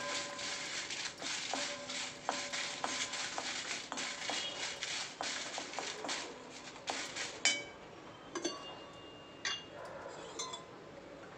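Metal cookware and utensils clinking and ringing over a steady hiss for about seven seconds; the hiss stops abruptly, then a few separate sharp clinks, one ringing on briefly.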